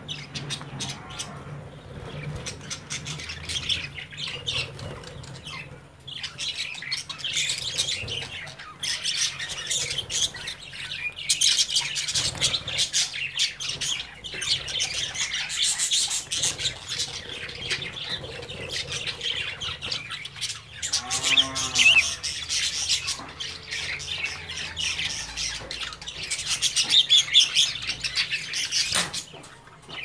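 A flock of budgerigars chattering, chirping and squawking continuously, with louder bursts now and then, the strongest about two-thirds of the way through and near the end.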